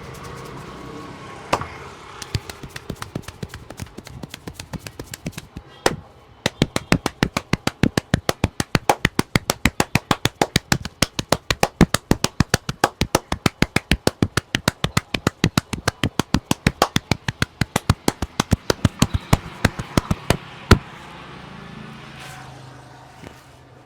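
Barber's hands slapping and tapping on a customer's head in a percussive massage. Scattered taps come first, then from about six seconds in a fast, even run of sharp slaps, about five a second, which stops near the end.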